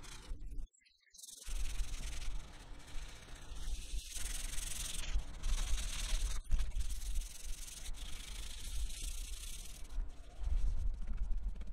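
Sandpaper rubbed back and forth by hand over the body-filler patches on a barber's chair base, a scratchy hiss that swells and fades with each stroke. The sound drops out briefly about a second in.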